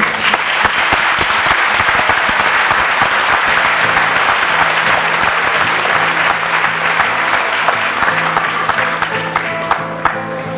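Audience applauding over music, with the music coming back clearly under the clapping near the end.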